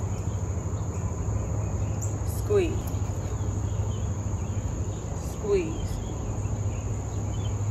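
Insects chirring steadily in an even high band, over a low steady hum. Twice, a few seconds apart, a short falling vocal sound from the woman as she rises from a squat.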